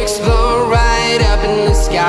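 Background pop music with a steady beat, a low drum hit about twice a second.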